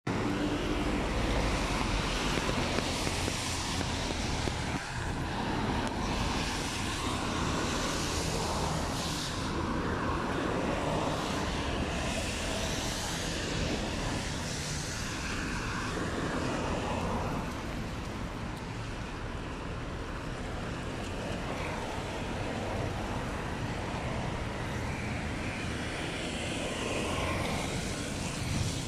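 Road traffic on a rain-wet road: a steady rumble of engines with the hiss of tyres on wet tarmac, swelling several times as vehicles pass close by.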